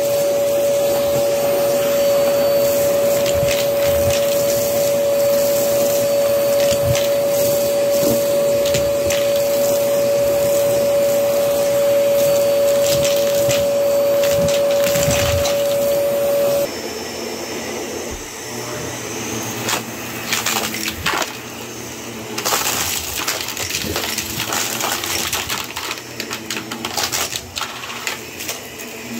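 Vacuum cleaner running on carpet with a steady whine, rattling as it picks up dry debris, then cutting off abruptly a little past halfway. After that comes quieter, irregular crackling and rattling of dry debris being scattered onto the carpet.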